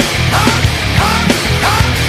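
Loud, distorted, fast rock music with a heavy, driving beat.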